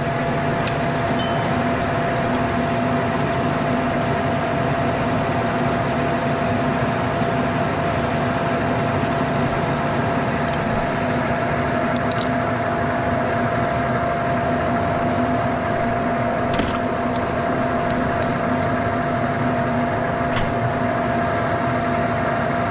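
Turret lathe running steadily under cut as it machines a steel spindle part, a constant mechanical hum with a steady high tone and a few faint clicks.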